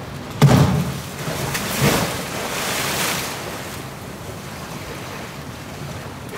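A polar bear plunging into its pool: a sudden heavy splash about half a second in, a smaller one near two seconds, then water churning and sloshing as it swims.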